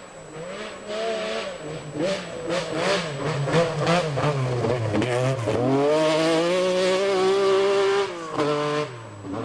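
Group B rally car engine accelerating hard, its pitch climbing and falling through gear changes, with a run of sharp cracks between about two and four seconds in. It then holds a steady high note for about two seconds before lifting off near the end.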